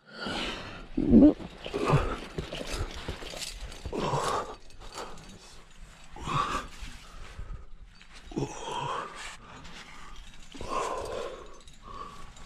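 A rock climber's heavy, effortful breathing and grunts while working up a chimney, with a loud breath about every two seconds.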